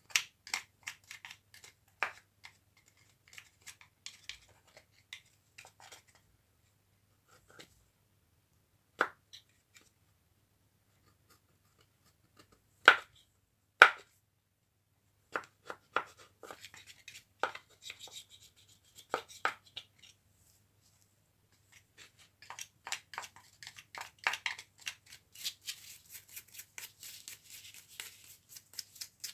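Hand work on small jigsaw parts: scattered sharp clicks and knocks, with two louder ones a second apart partway through, then quicker runs of small taps and, in the last few seconds, continuous scraping and rubbing.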